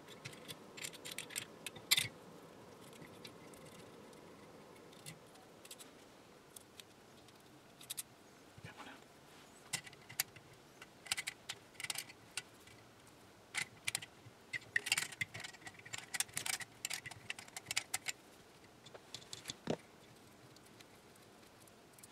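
Scattered light clicks and clinks of small metal parts and dial knobs being worked off a 1923 Chelsea regenerative receiver's chassis and set down on the bench, coming in clusters that are busiest in the second half.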